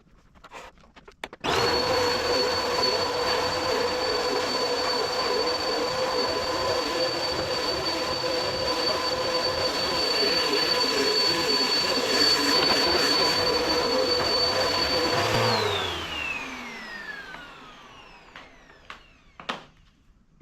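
Upright Bissell vacuum cleaner switched on about a second and a half in: its motor runs steadily with a high whine, then is switched off near the end and winds down, the pitch falling as it slows. It is a test run with a freshly fitted Style 7 bag, and the vacuum is working.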